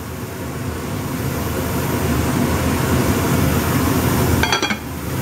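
Aluminum pot lid set down on a metal skillet with a brief metallic clink and ring about four and a half seconds in, over a steady low rushing noise.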